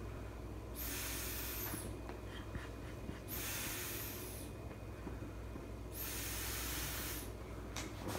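Someone blowing up an air mattress by mouth: a long breathy rush three times, about every two and a half seconds, over a low steady hum.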